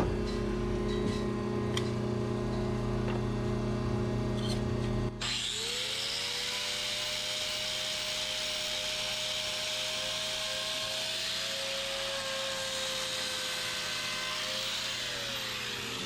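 Power tool used on a cow's hoof: a steady low motor hum for about five seconds, then after a sudden change a grinder spins up, runs steadily with a high grinding hiss for about ten seconds, and winds down near the end.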